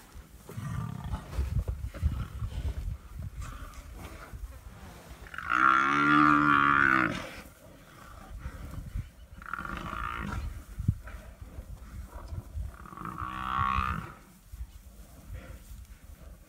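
Male lions growling as they attack an adult Cape buffalo. The buffalo bellows three times, the first and loudest about a third of the way in and lasting over a second.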